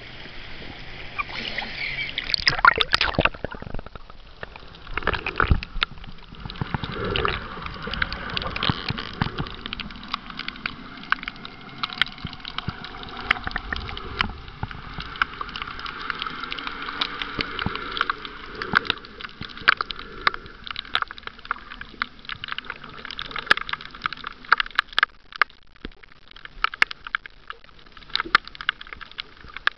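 Seawater sloshing around a camera held at the surface, with a loud splashy rush about two to three seconds in as it goes under. After that comes muffled underwater noise with many scattered clicks and crackles.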